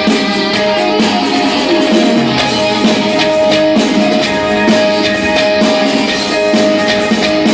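Live band music with no singing: strummed guitar and chords over a steady beat, with one note held throughout.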